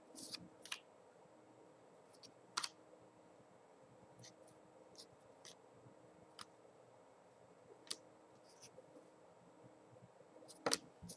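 2012 Topps football trading cards being flipped through by hand: faint, sharp clicks of card stock snapping as each card is slid off the stack, irregularly about once a second, with a louder click near the end.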